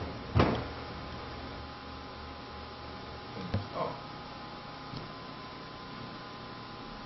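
Steady hum and hiss of room tone in a workshop. A sharp knock comes about half a second in, and a couple of faint knocks and a short falling squeak come near the middle.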